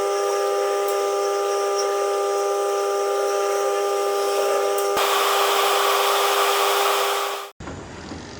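A steady mechanical whine over a hiss. About five seconds in it turns into a louder, rougher hiss, then cuts off suddenly, and a quieter rumbling noise follows.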